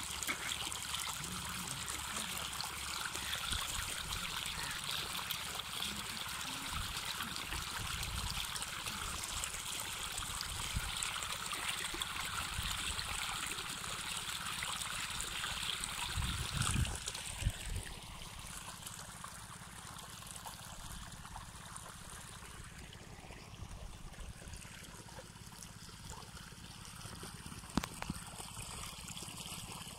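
Water rushing and splashing from a petrol water pump's discharge hose into flooded, muddy furrows. The rush gets quieter about 18 seconds in.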